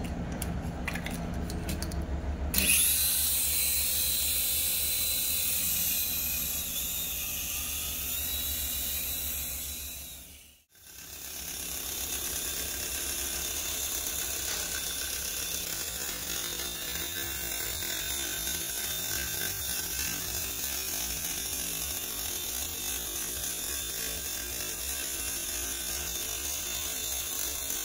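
Mini RC helicopter's small electric motor and rotor whirring with a thin whine, starting up about two and a half seconds in. It fades out briefly around the middle, then runs steadily again.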